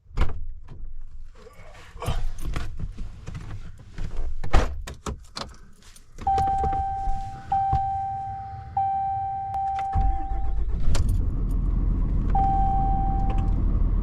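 Keys jangling and clattering, followed by a steady electronic warning chime that sounds in a few long stretches, then a low engine-like rumble that sets in about ten seconds in and keeps going.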